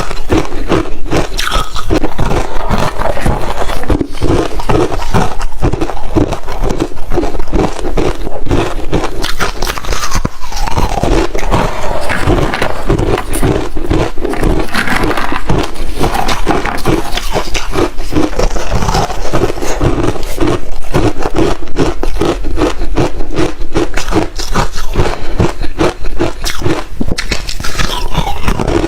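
Ice being bitten and chewed close to the microphone: continuous loud crunching and crackling, with rapid, irregular cracks of breaking ice.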